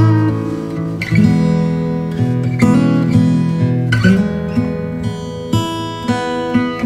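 Background acoustic guitar music with plucked and strummed chords.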